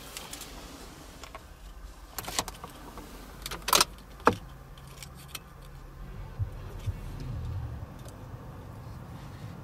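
Keys jangling on a flip key as it is put into the ignition and turned, with a sharp click about four seconds in. A faint low hum follows, with a few small knocks.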